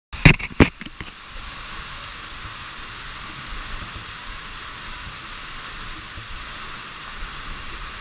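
Waterfall pouring into a rock pool, a steady even hiss. Two sharp knocks in the first second are the loudest sounds.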